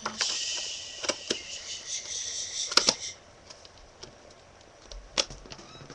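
Packaging being handled and packed back into a box: a rustling hiss for about three seconds with a few sharp clicks, then a single sharp click about five seconds in.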